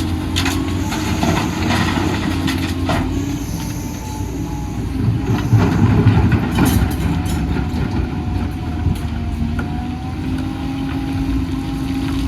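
Doosan DX250 hydraulic excavator working: its diesel engine running steadily, growing louder about halfway through, with scattered knocks and clanks.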